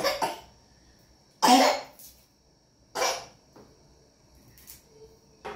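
A person coughing: three short, harsh coughs about a second and a half apart, the middle one loudest.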